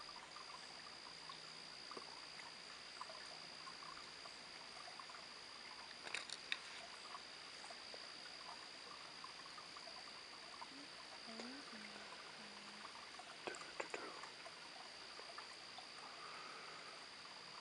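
Faint night ambience: a steady high-pitched insect drone, with scattered soft clicks and a few short low calls partway through. No thunder is heard.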